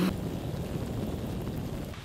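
A canister backpacking stove's roar stops abruptly right at the start. What remains is a steady low rumble of wind on the microphone.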